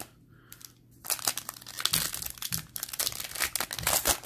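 Shiny plastic wrapper of a Bowman Chrome trading-card pack crinkling and being torn open by hand, a dense run of crackles starting about a second in.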